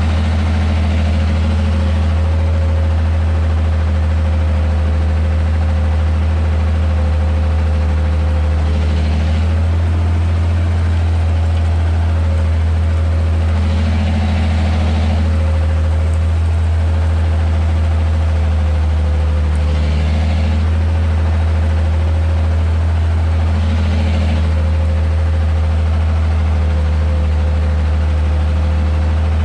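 Ursus 1214 tractor's diesel engine running steadily under load while pulling a plough, heard from inside the cab as a loud, even drone. A brief rushing hiss swells up every five seconds or so.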